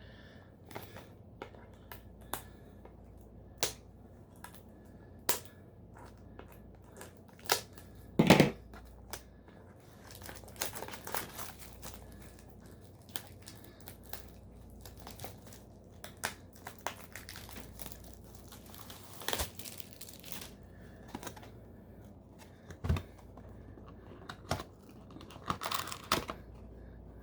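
Packaging of a Pokémon card booster box being torn open and crinkled by hand, with scattered light clicks and a louder knock about eight seconds in.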